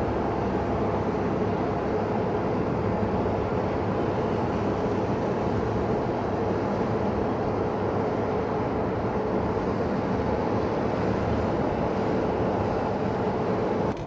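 Steady road noise inside the cabin of a 2021 Ford Bronco two-door hard top cruising at about 45–50 mph, measuring about 62 dB(A), with a faint steady hum underneath.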